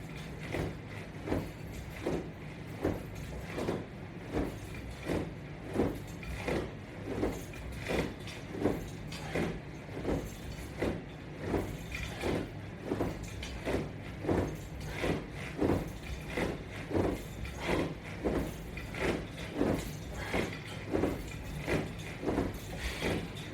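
A man doing crunches with resistance-band straps: a short swishing sound with each repetition, a little over once a second, over a steady low hum.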